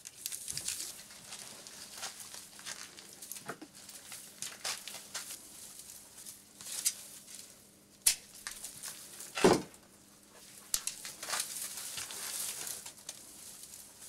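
Dry twig bundle rustling and crackling as it is handled and bound with string into a broom. It is a run of short, irregular crackles, with a sharper, louder snap or knock about nine and a half seconds in.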